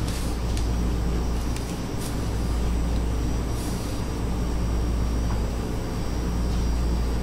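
Steady low buzzing hum of a gold T-shaped vibrating facial bar held against the forehead, with a few faint ticks.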